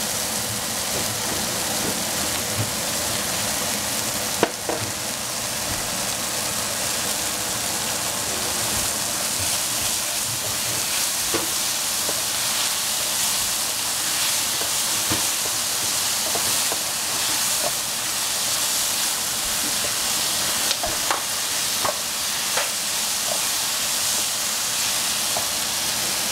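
Mushrooms sizzling steadily as they stir-fry in a pan, with a few short clicks of the utensil against the pan as they are stirred.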